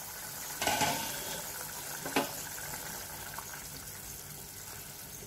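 Drumstick curry bubbling at a boil in a pan while a spatula stirs it. A brief louder scrape just under a second in and a single knock about two seconds in.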